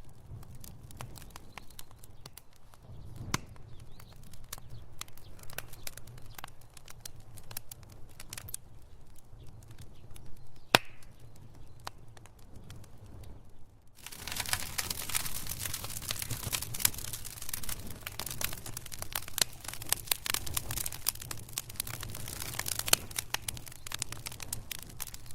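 Wood fire crackling in a fireplace over a low rumble of flame, with scattered sharp pops and one louder snap near the middle. About halfway through the crackling turns much denser and louder.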